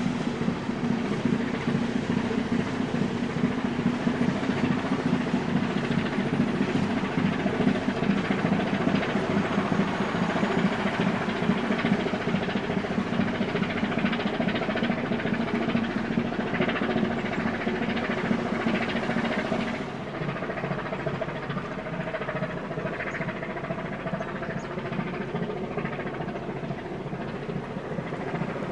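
Marine diesel engine running with a steady, low drone and a rumbling mechanical texture, dropping in level about twenty seconds in.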